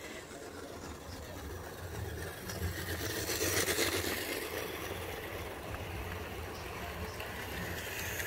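Model train of Stanier Jubilee and Black Five locomotives running on carpet-laid track: a steady low motor hum with wheel rumble that swells as the coaches pass close by about three and a half to four seconds in, then settles back.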